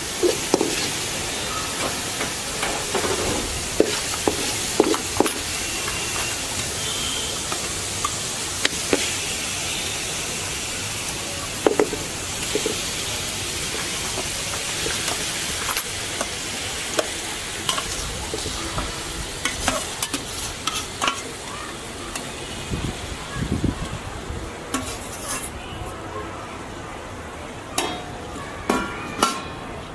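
Raw chicken pieces sizzling in hot oil and masala paste in a pan, with a spoon scraping and knocking against the pan as they are stirred. Near the end the sizzling dies down and the stirring knocks carry on.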